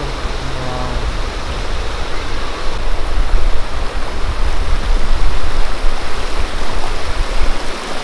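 Shallow rocky river rushing and splashing over boulders, a steady loud rush of water that grows louder about three seconds in.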